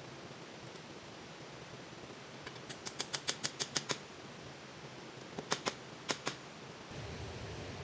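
A quick run of about eight sharp clicks, then three more a second and a half later, over a steady hiss of rain.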